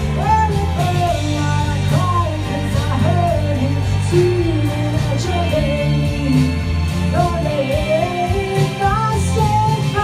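A woman singing into a handheld microphone, holding and sliding between notes, over a pop backing track with a steady bass line.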